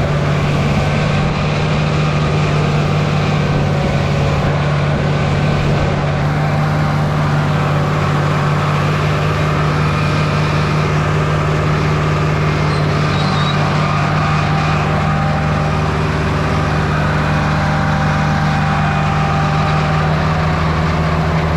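Tractor engine running steadily under load with the PTO engaged at 540 rpm, driving a hay mower, as a strong even hum.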